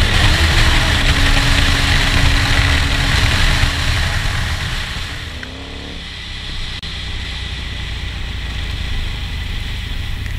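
KTM motorcycle running at speed, engine note under heavy wind rush on the helmet-mounted microphone. About five seconds in the sound drops to a lower, steadier ride noise.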